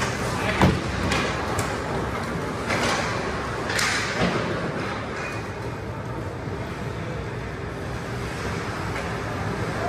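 Ice hockey rink sounds during play: a steady arena rumble with a sharp thud about half a second in and a few brief scraping bursts, typical of skates digging into the ice, around three and four seconds in.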